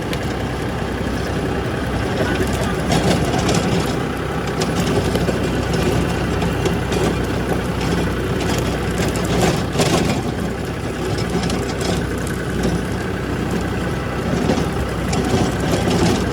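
Tractor engine running steadily at idle, cutting off abruptly at the end.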